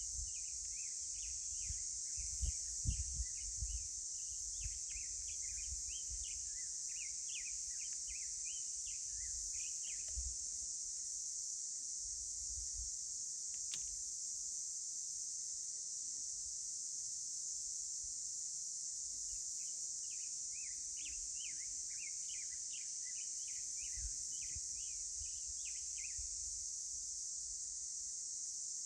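Steady high-pitched drone of insects in a canyon, with a bird singing rapid runs of chirps in two bouts, the first near the start and the second past the middle. Low gusts of wind rumble on the microphone early on.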